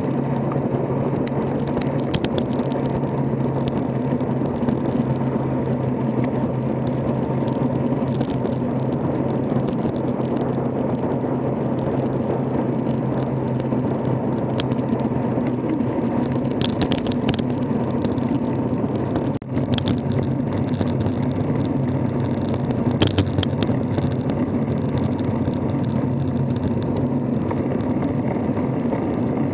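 Road bike rolling fast on asphalt: a steady rush of wind and tyre noise with a constant low hum on a bike-mounted camera, with a few brief rattles in the second half.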